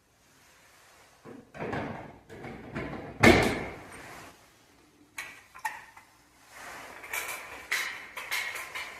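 Handling noise from a ceiling heat detector being swapped out: irregular plastic clicks, knocks and scraping, with one loud knock about three seconds in.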